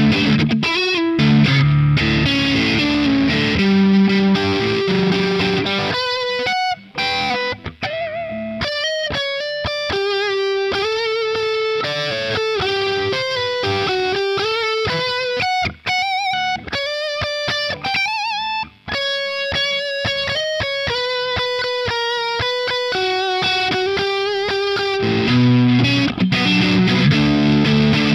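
Improvised electric guitar playing through distortion. It opens with dense distorted chords, moves about six seconds in to a single-note lead line with held, wavering notes, and returns to thick chords near the end.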